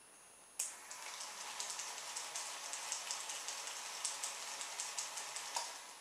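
Small DC toy motor driving the car's CD wheels through a rubber-band belt, running with a crackly, clicking rattle for about five seconds. It starts about half a second in and stops near the end, each time with a sharp click as the relay switches.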